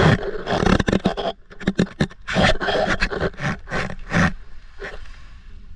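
Irregular knocks, scrapes and splashes of hands handling coral rubble in a bucket of seawater and a plastic basket, dying down near the end.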